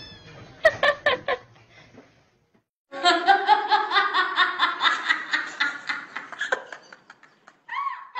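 A person laughing, a long run of quick ha-ha sounds starting about three seconds in.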